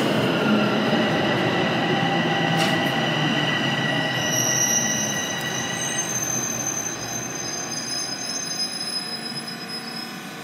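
Bombardier Toronto Rocket subway train rumbling and braking into a station, with steady high-pitched whines over the wheel noise. The sound fades gradually as the train slows to a stop.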